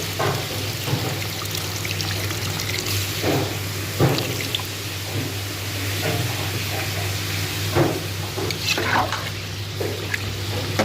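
Water being poured into a cooking pot of sautéed bottle gourd, with a few short knocks and splashes, over a steady low hum.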